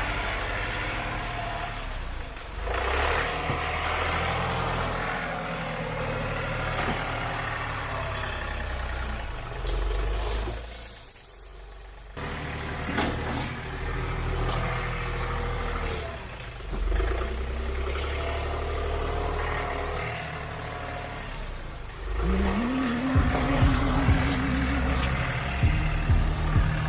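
Compact tractor engine running steadily while working. It drops out briefly about halfway through, then revs up and gets louder near the end.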